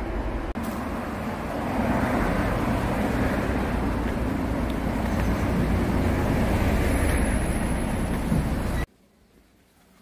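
Steady road traffic noise, a continuous rumble and hiss of passing cars, which cuts off suddenly near the end.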